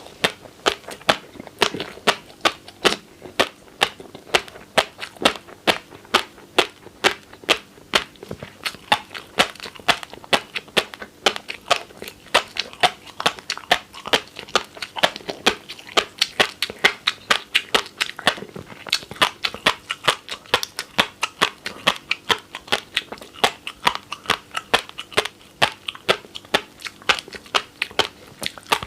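Fish roe popping and crunching as it is chewed close to the microphone: a steady run of sharp little clicks, about three to four a second.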